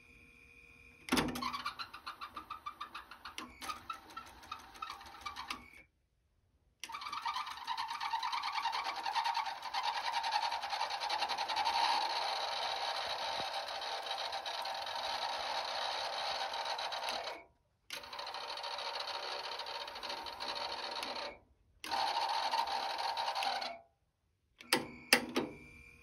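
Yamaha KX-150 cassette deck running a tape. It is heard in several stretches that cut off abruptly to dead silence, each starting with a sharp click. A few seconds of rapid pulsing come first, then a long steady stretch.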